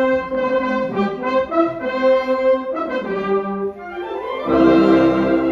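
Wind band playing a brass fanfare: held trumpet and trombone chords, then a rising swell and the full band coming in louder with deep bass about four and a half seconds in.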